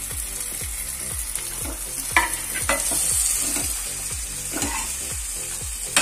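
Bitter gourd and paneer pieces tipped into a steel pan of hot masala, sizzling, then stirred with a steel ladle that clinks against the pan a few times.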